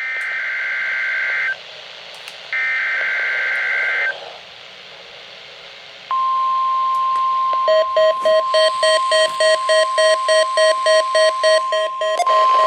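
NOAA Weather Radio weekly test signal: two bursts of the SAME digital header's warbling data tones, then the steady 1050 Hz warning alarm tone starting about six seconds in. From about seven and a half seconds a receiver's electronic alert beeps rapidly over the tone, about three beeps a second.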